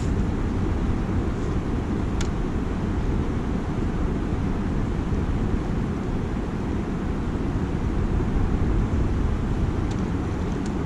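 Wind buffeting the microphone as a steady, uneven low rumble, over the rush of river water.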